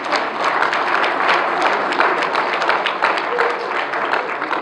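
Audience applauding: dense, steady clapping that thins out near the end.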